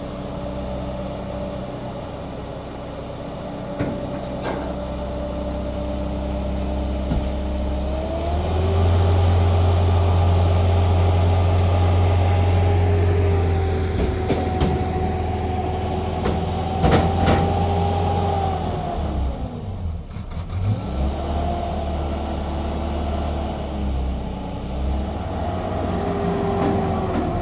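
Car engine running, then revved up about eight seconds in and held at higher revs for around ten seconds. The revs drop near the nineteen-second mark, then rise and fall again twice more.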